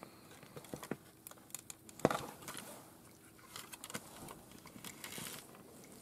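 Handling noise from a Roberts R9974 radio's circuit board being worked free of its plastic case: scattered light clicks and rustles, with one sharper click about two seconds in.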